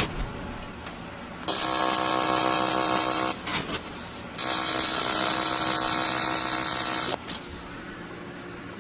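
AC TIG welding arc on aluminum, a steady buzzing hiss struck twice: once for about two seconds, then, after a short break, again for nearly three seconds before cutting off.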